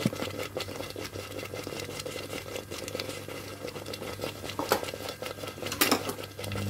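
Thick mashed vegetable bhaji simmering in a steel pot, popping and spluttering in irregular small clicks, a few louder pops near the end, over a steady low machine hum.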